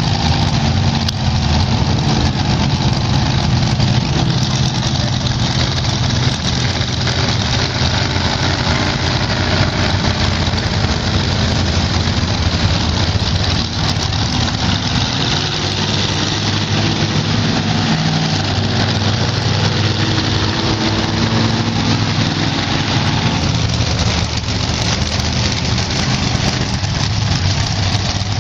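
Several monster truck engines, just fired up, running together at idle in a loud, steady din.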